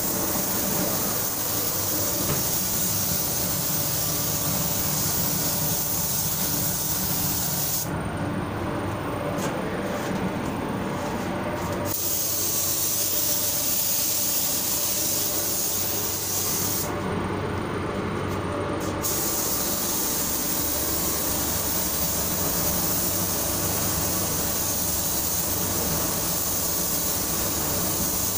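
Compressed-air gravity-feed spray gun hissing steadily as it sprays paint onto a car body panel, its high hiss breaking off twice for a few seconds, about eight and seventeen seconds in, over a steady lower rumble.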